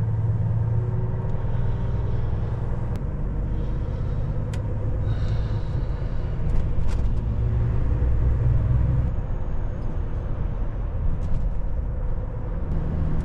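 Semi-truck's diesel engine running while driving, heard from inside the cab: a steady low hum that shifts in pitch a few times, with a few faint clicks and a brief hiss about five seconds in.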